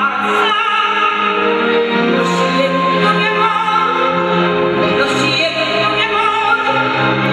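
A woman singing a song into a microphone over musical accompaniment, with long held notes.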